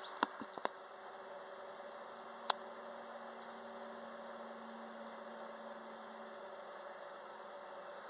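Faint steady droning hum, with a few light clicks in the first second and one sharp click about two and a half seconds in.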